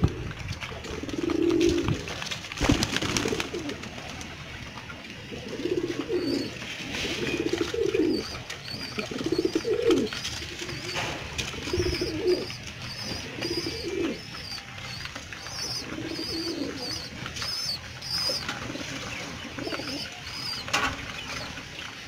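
Domestic pigeons cooing again and again, low calls coming every second or two, with faint high chirping above them through the middle stretch.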